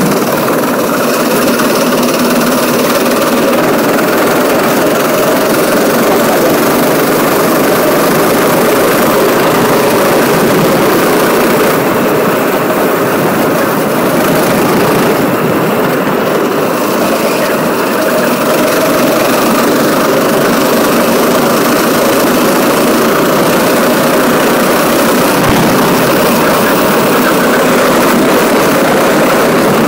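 Go-kart engine running hard on track, a loud, steady drone heard from on board the kart.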